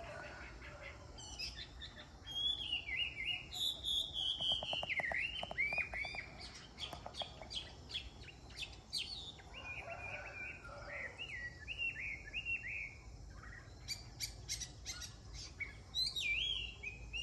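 Chinese hwamei (hoạ mi) singing a long, varied song of whistled phrases, slurred notes and quick runs of repeated notes, starting about a second in, easing off midway and picking up again near the end.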